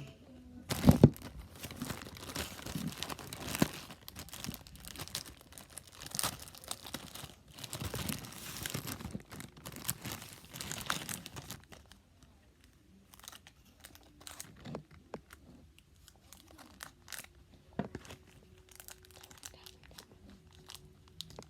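Plastic candy bag crinkling and being torn open, with a sharp loud crackle about a second in. After about twelve seconds the crinkling thins to scattered small crackles.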